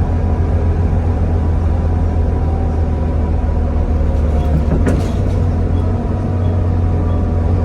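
Volvo B7TL double-decker bus's six-cylinder diesel engine running steadily under way, with a strong low drone. A single brief sharp knock a little after halfway.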